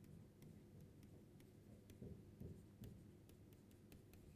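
Faint, irregular taps and scratches of a pen stylus writing on a tablet screen, over a faint steady low hum.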